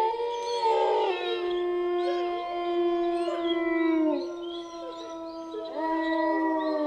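Several wolves howling together in long, overlapping held notes; the howls slide down in pitch about four seconds in, and another howl rises near the end.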